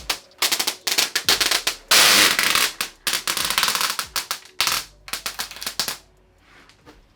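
Plastic protective film being peeled off a TV screen, crackling and ripping in quick bursts, with one longer tearing stretch about two seconds in. It dies down to faint rustling near the end.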